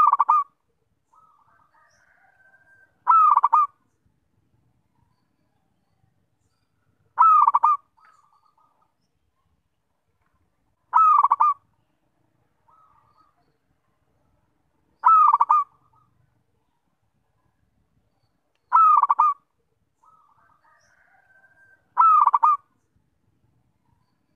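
Zebra dove (perkutut) singing: a short, rapid burst of cooing notes repeated seven times, one every three to four seconds.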